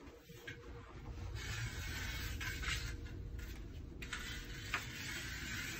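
Utility blade slicing excess double-sided tape along the edge of an aluminium closet-door track: a dry scraping in two long strokes, with a small click near the end of the second.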